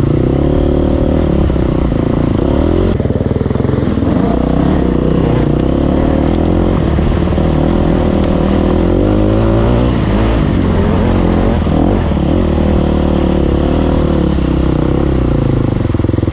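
Single-cylinder four-stroke engine of a freshly rebuilt 2012 KTM XC-F 250 dirt bike, running under load while being ridden. The revs rise and fall continually over a steady hiss.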